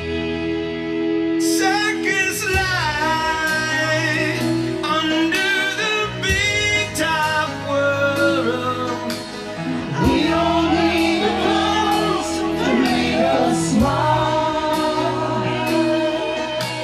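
Male and female voices singing a slow rock ballad together over a karaoke backing track of sustained band instruments.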